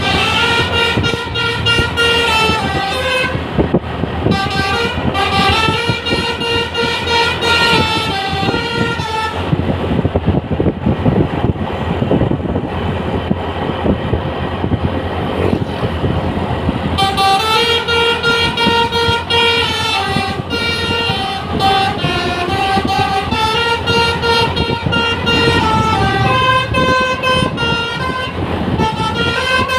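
The telolet basuri musical horn of the Azzahra Holiday bus "Zafira" playing a tune of stepped, flute-like notes in two long runs, with a stretch of rushing noise and no tune from about ten to seventeen seconds in.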